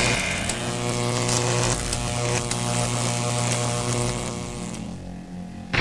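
Lightsaber sound-font effect from Novastar's Thunder Storm font: a steady electric buzzing hum with scattered crackles, fading away near the end. A new, louder sound cuts in sharply at the very end.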